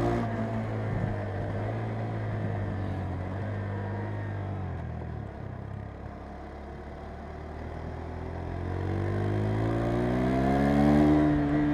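KTM 390 Adventure's single-cylinder engine under way: revs hold steady, fall off and quieten around the middle as the throttle closes, then climb again in a rising pitch as the bike accelerates hard, loudest near the end.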